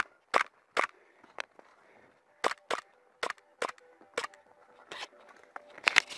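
Airsoft guns firing single shots, about a dozen sharp cracks at irregular intervals, a few tenths of a second to a second apart, with a cluster near the end.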